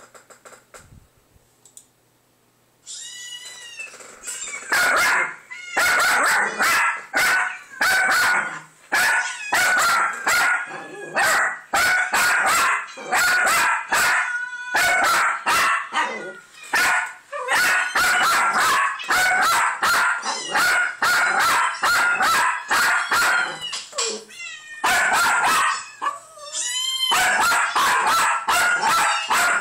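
Jack Russell terrier barking over and over in quick bursts, about two barks a second, starting about four seconds in, excited by cats meowing on a computer monitor. The kittens' meows from the monitor's speakers come in just before the barking starts and again near the end.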